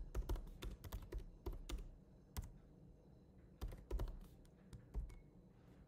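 Typing on a computer keyboard: quick runs of key clicks, with a lull of about a second in the middle before another short run.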